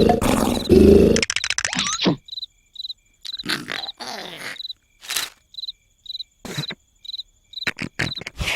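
Cartoon soundtrack of crickets chirping in a steady rhythm, a little under two chirps a second, with short cartoon sound effects in between. It opens with a loud rattling sound that stops about a second in.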